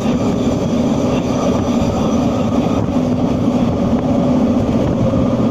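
SkyTrain car running along its guideway, heard from inside the car: a steady rumble of the running gear with a low hum, even throughout.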